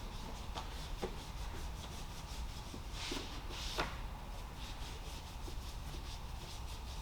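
Faint rubbing and scrubbing strokes of engine-bay cleaning, with a couple of louder strokes about three and four seconds in.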